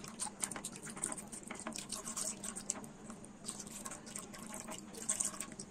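Silicone spatula stirring hot milk in a non-stick pan as custard mix is poured in, giving irregular scrapes and liquid sloshing, kept moving so the custard does not go lumpy. A steady low hum runs underneath.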